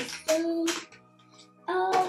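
Background music with a child's voice singing: one held note about a third of a second in, and another starting near the end.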